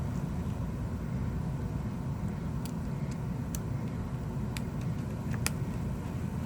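Steady low background rumble, with a few small sharp clicks in the second half from handling the iPhone and tools during reassembly, the loudest near the end.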